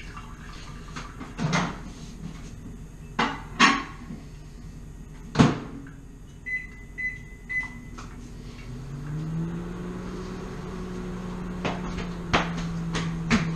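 A microwave oven being started: a few clunks, then three short keypad beeps about six and a half seconds in, and the oven starts running with a steady hum about nine seconds in.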